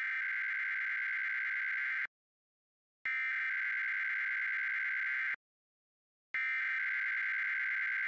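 Emergency Alert System SAME header data tones: three identical bursts of harsh, buzzing digital warble, each about two seconds long, separated by about a second of silence. The header encodes a Required Weekly Test from the National Weather Service rather than the expected National Periodic Test.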